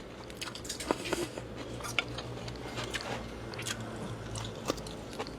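Close-up mouth sounds of a person eating pork noodle soup: chewing and biting, with irregular small clicks and smacks several times a second.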